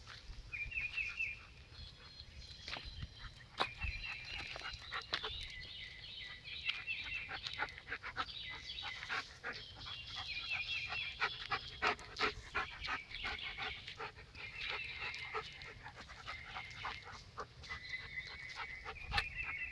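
German Shepherd dogs panting close by, with short clicks and rustles as they move about. Clusters of high, rapid chirps from birds sound in the background.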